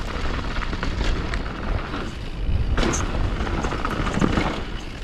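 Wind rush buffeting a moving camera's microphone over the hiss and scrape of riding fast down a snowy slope, with a few short, sharp scrapes or knocks around the middle.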